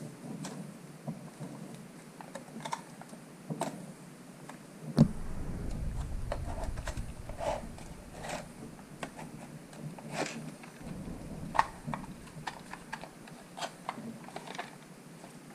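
3D-printed mechanical flip display clicking and clacking as its plastic flaps flip over, in an irregular run of sharp clicks. A low rumble joins from about five seconds in and stops about eleven seconds in.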